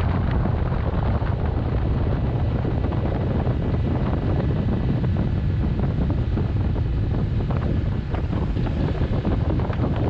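Wind buffeting the microphone of a camera on a motorboat under way at speed, over the steady running of its Yamaha 115 outboard motor and the rush of water from the hull.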